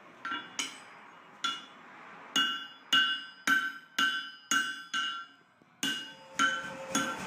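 Blacksmith's hammer striking on an anvil: about a dozen ringing blows in an uneven rhythm with short pauses, each leaving a bright metallic ring. A steady hum comes in near the end.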